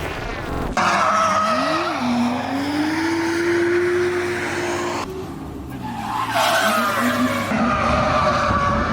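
Rear-wheel-drive drift car sliding with the tyres squealing, its engine revving up and held high. The revs ease off about five seconds in, then climb again. Heard from inside the car.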